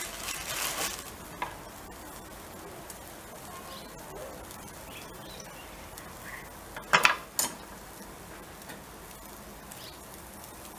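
Burger patties and thin meat slices sizzling over charcoal on a grill, a steady faint hiss. A couple of sharp clicks about seven seconds in.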